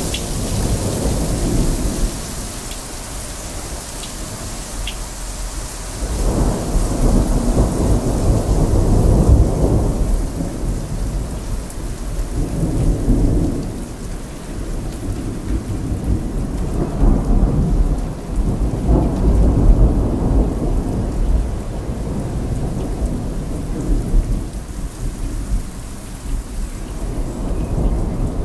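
Heavy rain falling steadily with thunder rumbling in several long, rolling swells, the strongest about a third of the way in and again about two thirds in.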